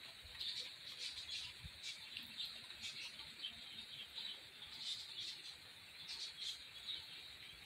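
Small birds chirping outdoors in short, irregular high notes, faint, over a steady high-pitched drone.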